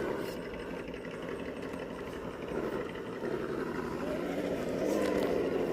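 RC rock crawler's electric motor and geared drivetrain whirring as it crawls over rocks, swelling a little near the end.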